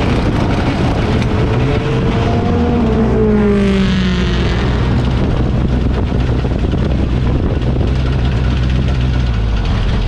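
Mini stock race car engine heard from a roof-mounted camera, a steady low drone with rushing noise over it. About three to four seconds in, an engine note falls in pitch before the low drone settles and runs on evenly.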